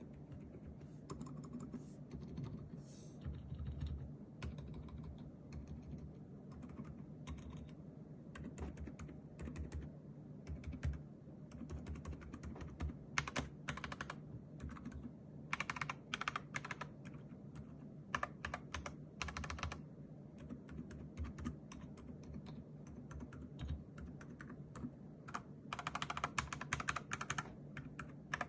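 Typing on an FL750 mechanical keyboard with Akko Fairy switches: a continuous, uneven patter of key presses, each a click with a low thud beneath it.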